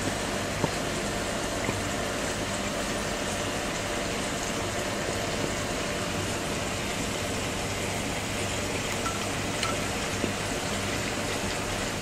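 Aquarium sponge filters bubbling: a steady watery hiss with a few faint ticks, over a steady low hum.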